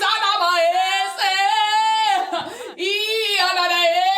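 A woman's voice singing three long, drawn-out phrases of held notes, with short breaths between them.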